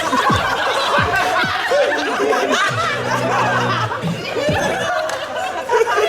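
A group of people laughing together, many voices at once, with background music underneath.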